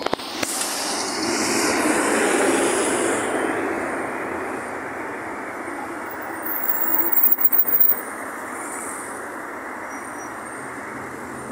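Road traffic on a multi-lane avenue: cars and buses driving past, with a swell as a vehicle goes by about two seconds in. A short burst of crackling comes about seven seconds in.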